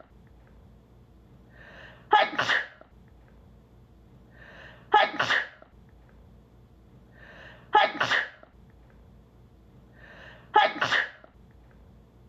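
A woman sneezing four times, about every three seconds, the same sneeze looped: each time a short in-breath followed by a sharp voiced "achoo".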